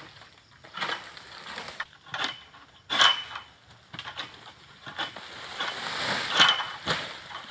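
Long-poled oil palm harvesting sickle cutting into a frond at the palm's crown: a series of irregular pulling, rasping cuts. The two loudest strokes, about three seconds in and near the end, carry a short ring.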